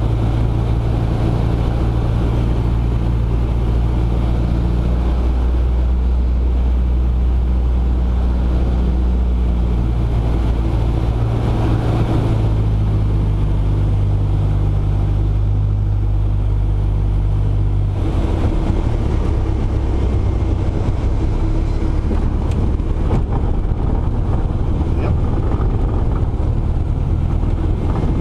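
Cessna 150's four-cylinder Continental O-200 engine and propeller running steadily on approach, the note stepping with throttle changes; about two-thirds of the way through the steady engine tone drops away into a rougher rumble as power is reduced for the landing.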